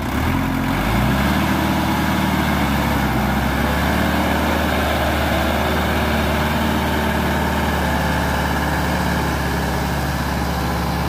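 Sonalika tractor's diesel engine revving up over the first second, then running steadily at high revs under load as the tractor drives out of deep mud.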